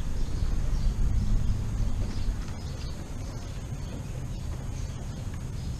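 Wind buffeting the microphone: an uneven low rumble, strongest in the first couple of seconds.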